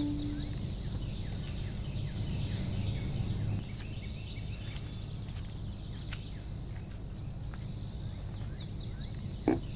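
Outdoor ambience: faint bird chirps over a steady low rumble. A held saxophone note dies away in the first half second, and a few plucked guitar notes come in near the end.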